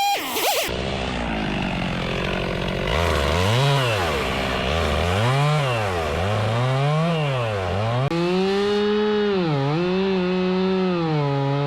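Chainsaw engine revving up and down several times, then held at high revs with brief dips in speed near the end.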